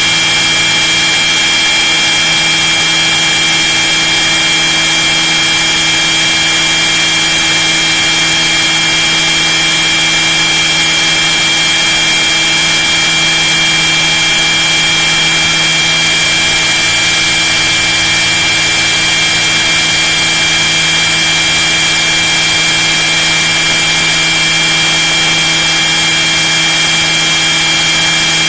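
Radio-controlled scale model helicopter in flight, heard from inside its fuselage: a loud, steady mechanical whine from its motor, gears and rotor, holding one constant pitch.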